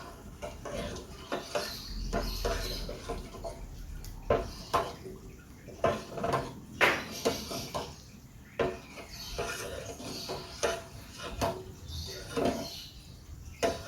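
Kitchen clatter: a string of irregular clinks and knocks of a utensil against a cooking pot, some with a short metallic ring.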